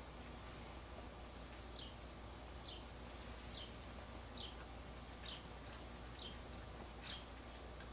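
Newborn Bedlington terrier puppy squeaking: short, high, falling squeaks, faint, about one a second, starting about two seconds in. Squeaking like this is the sign of a live, responsive pup.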